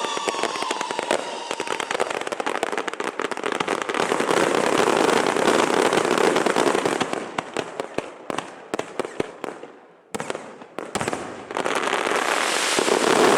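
Fireworks and firecrackers going off in a dense, continuous crackle of rapid bangs. It thins to scattered pops about eight seconds in, falls nearly quiet for a moment around ten seconds, then resumes densely.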